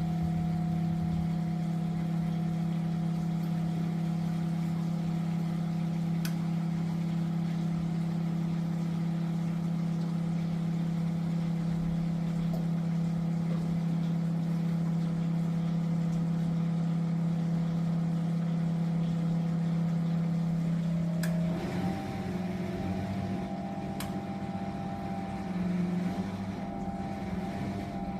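Miele De Luxe W423 washing machine running with a loud, steady hum that turns rougher and less even about three-quarters of the way through, with a few sharp clicks.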